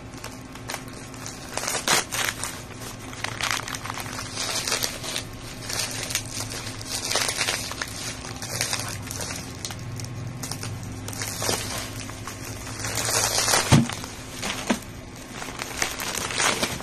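Plastic parcel wrapping crinkling and rustling in irregular bursts as it is handled and pulled open, with a sharp knock about fourteen seconds in. A faint steady hum runs underneath.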